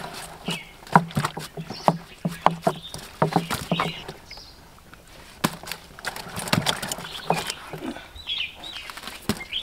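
Live silver barb and Nile tilapia flapping and splashing in a shallow plastic basin of water as they are handled and tipped in from a mesh keep net: irregular wet slaps, splashes and knocks against the plastic.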